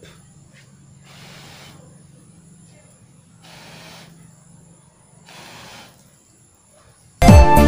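A person blowing on the glowing embers of a small wood fire to fan it up, three long puffs of air about two seconds apart. Near the end, loud music with falling tones cuts in suddenly.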